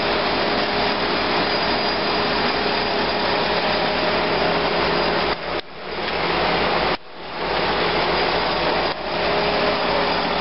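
Minivan engine idling under an open hood, heard as a steady, loud, noisy rush with a faint hum, while its emissions are being measured. The sound cuts out sharply three times, a little past the middle, and swells back each time.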